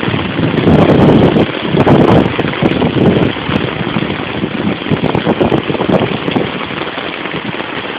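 Heavy rain and floodwater, a loud, dense rushing noise that surges and eases.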